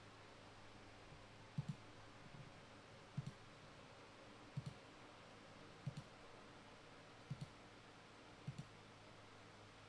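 Soft clicks in quick pairs: six pairs, about one every second and a half, over a faint steady low hum.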